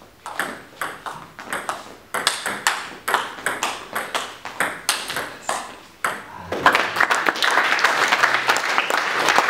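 Table tennis rally: the celluloid-type ball clicking off bats and table about two to three times a second for some six seconds. The rally ends and applause breaks out about six and a half seconds in.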